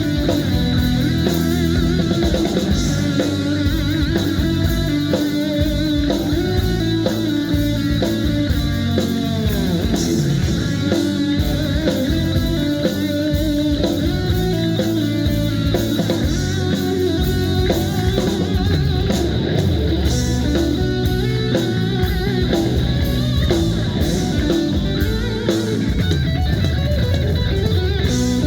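A rock band playing, with guitar and drum kit to the fore; a few bent guitar notes glide in pitch about nine seconds in.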